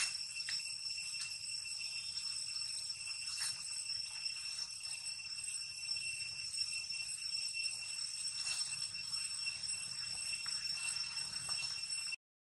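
Insects making a steady, high-pitched ringing drone at several fixed pitches, with faint rustles of leaf litter under it. It cuts out abruptly near the end.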